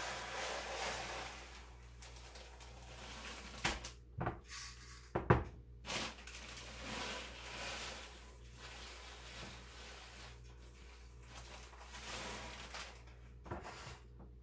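Handling noise while popcorn kernels are measured out: a cluster of sharp clicks and knocks of a measuring cup and container on the counter about four to six seconds in, with soft rattling of the kernels in between.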